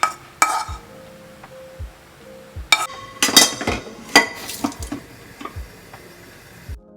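A metal spatula clinking and scraping against the pan and plate as stir-fried minced pork is served, in a string of sharp knocks, with a cluster about three seconds in. Background music with a steady beat plays under it.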